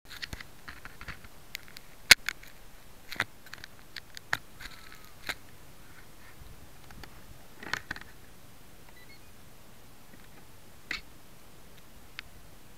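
Sharp, irregular clicks and knocks over a steady faint hiss, the loudest about two seconds in and sparser in the second half. This is handling noise picked up through the airframe by a keychain camera on an RC trainer plane while the plane is moved about on the grass, with its electric motor not running.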